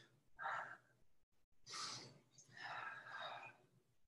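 A woman's breathing: a few soft, audible inhales and exhales with the effort of repeated side sit-ups.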